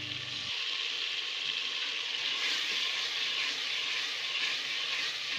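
Onion-tomato spice masala sizzling steadily in hot oil in an aluminium pot as it is stirred with a wooden spoon, the masala being fried through (bhunna) for aloo gobhi.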